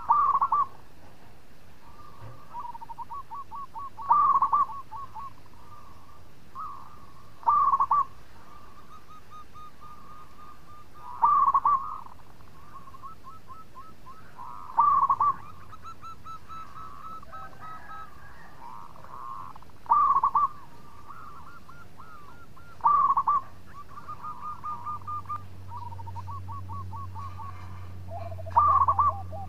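Zebra dove (perkutut) cooing: a loud, short burst of quick rolling coo notes every three to four seconds, with softer runs of rapid notes between the calls. A low steady hum comes in near the end.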